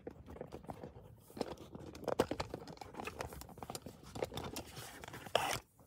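Handling noise of a phone being taken off its mount and fitted onto a selfie stick: scattered small clicks, taps and rubbing, with a louder scrape near the end.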